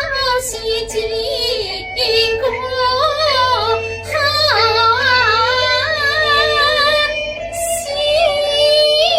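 Wu opera (Wuju) singing: a high voice sings long ornamented, wavering phrases in the traditional Chinese opera style, recorded straight on a phone. The singing breaks briefly about seven seconds in, then goes on.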